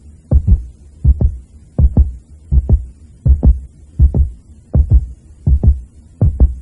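Heartbeat sound on the soundtrack: a low double thump, lub-dub, repeating steadily about every three quarters of a second, around 80 beats a minute.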